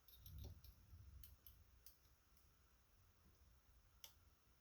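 Faint, scattered small clicks of lock picks working inside a Schlage Primus pin-tumbler cylinder, with one sharper click about four seconds in.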